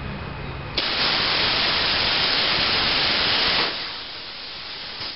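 Plasma cutter arc cutting a bolt hole through 1/8-inch steel plate: a loud, steady hiss that starts suddenly about a second in, runs for close to three seconds and stops abruptly, followed by a softer hiss.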